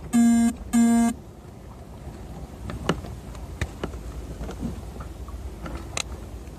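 Two short, loud, steady horn-like toots about half a second apart, each a single held pitch, right at the start; then scattered light clicks and knocks.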